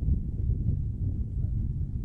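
Wind buffeting the microphone: an uneven, low rumble.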